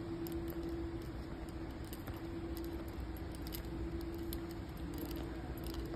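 A steady hum in a room, with scattered light ticks and taps from footsteps on a tiled floor and the phone being handled.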